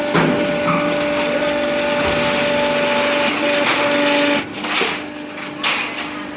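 High-pressure can press machine running with a steady mechanical hum; the hum drops off about four seconds in, followed by two short bursts of noise.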